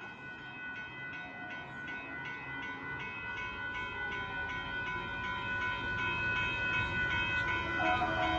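Rapid, evenly repeating ringing of a railroad grade-crossing warning bell over the rumble of the approaching Amtrak Texas Eagle passenger train, which grows steadily louder. New lower tones join near the end.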